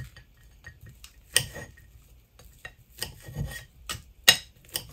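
Knife sawing through cooked steak on a ceramic plate, the blade scraping against the plate, with several sharp clinks of metal on the plate; the loudest clink comes about four seconds in.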